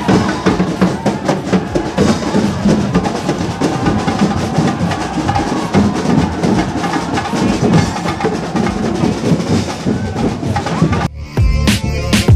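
A live street drum band of snare drums, bass drums and metal-shelled drums playing a dense, driving beat. About eleven seconds in it cuts abruptly to a clean, added music track with a heavy beat.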